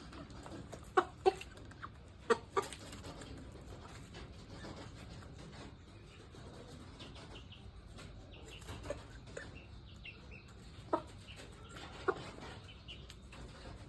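Kaonayen chickens clucking: a few loud, short calls in quick pairs about a second in and again around two and a half seconds, softer short calls in the middle, then two more sharp calls near the end.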